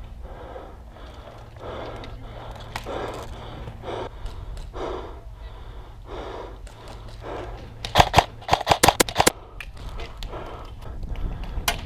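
Steady footsteps, then about eight seconds in a rapid burst of airsoft gun shots lasting just over a second, with more shots starting near the end.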